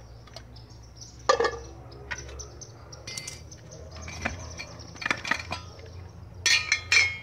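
Tin can and steel-wire supports of a sawdust stove clinking and scraping against the metal keg can as they are lifted out. The sounds are a scatter of sharp metal clinks, with a close group of the loudest near the end.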